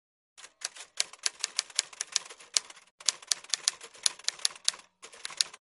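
Typewriter keys clacking in a quick, uneven run of strikes, about three loud ones a second among softer ones, with two brief pauses before stopping.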